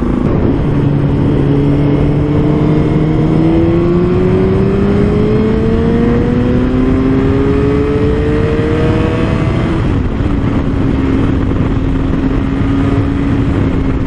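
A 2015 Suzuki GSX-R1000's inline-four engine pulling under way, its pitch rising slowly and steadily as the bike gains speed, dropping at an upshift about ten seconds in and then holding steady. Wind rushes over the helmet-mounted microphone throughout.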